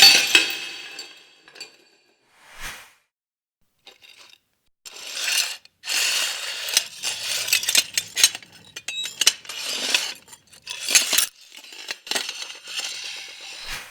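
A sharp hit that rings away, then a run of clinks and clatters of small hard objects, like dishes and cutlery knocking together.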